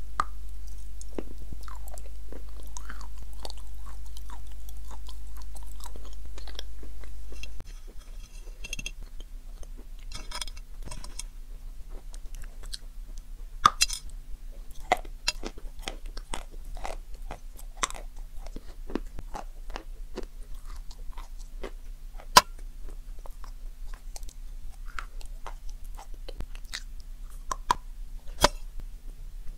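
Close-miked biting and chewing of a chocolate-coated marshmallow dessert, the coating cracking in scattered crisp crunches; the two sharpest cracks come about two-thirds through and near the end. A steady low hum underneath stops abruptly about seven seconds in.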